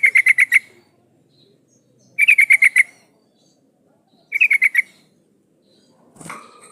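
Yellow-vented bulbul (trucukan) calling, presented as a female calling to a male. Three quick chattering phrases of about seven rapid notes each come about two seconds apart, and a rougher, lower sound follows near the end.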